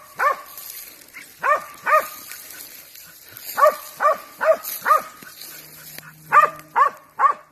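Tracking dog barking at a recovered deer it has trailed: about ten short, high barks in quick runs of two to four.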